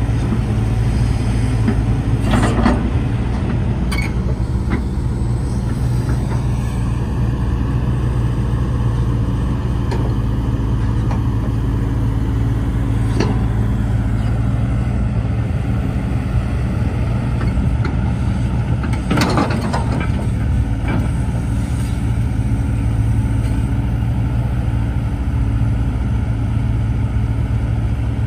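Hitachi ZX130-5N excavator's diesel engine running steadily while the hydraulics work the boom and bucket digging sand. A few clanks and knocks from the bucket and linkage, the loudest a cluster about two-thirds of the way through.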